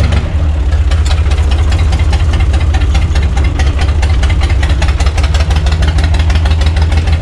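UTB U445 DT tractor's diesel engine running steadily, heard from the driver's seat in the cab, with a fast, even diesel clatter over a low drone.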